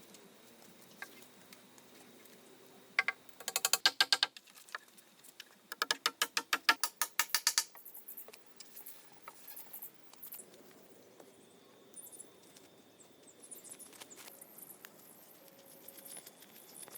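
Two short bursts of rapid, ratchet-like clicking, each lasting a second or two, then only faint scattered ticks.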